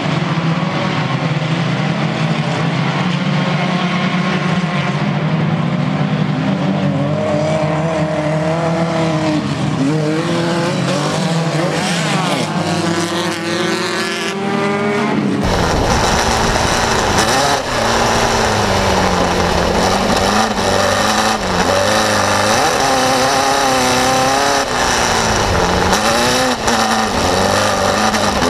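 Limited super buggy's engine racing, its pitch rising and falling with the throttle, heard from trackside. About halfway through the sound switches abruptly to the in-car view, where the engine is louder and fuller in the low end as it keeps revving up and down.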